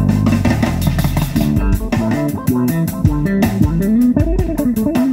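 Instrumental break of a band recording with no vocal: guitar playing over a sliding bass line and a steady drum beat.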